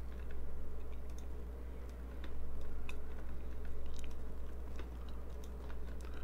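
Scattered computer mouse clicks and light keyboard taps over a steady low hum.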